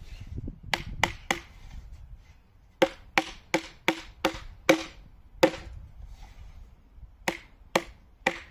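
A hammer knocking the dovetail joint of a small wooden drawer together: about a dozen sharp wooden knocks in short runs, with pauses between.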